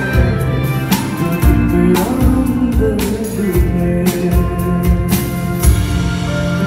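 Live rock band playing a song, heard from the audience: electric guitar, bass and drum kit, with sharp drum hits recurring through it.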